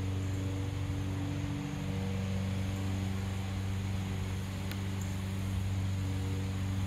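Steady low machine hum with several fixed tones stacked above it, its pitch unchanging throughout, over a faint hiss. A single light click about two-thirds of the way through.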